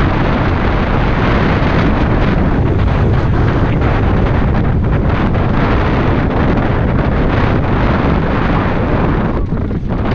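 Strong wind buffeting an action camera's microphone at speed, mixed with the steady rattle and crunch of a Commencal Meta SX mountain bike's tyres and frame over a loose, rocky track.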